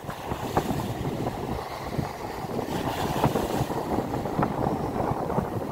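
Wind buffeting the microphone over small waves breaking and washing up the beach, with a few faint ticks.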